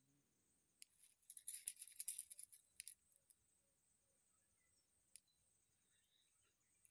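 A string of prayer beads handled and lifted, with a flurry of small clicks and rustling for about two seconds, then a single click and a few faint clicks near the end.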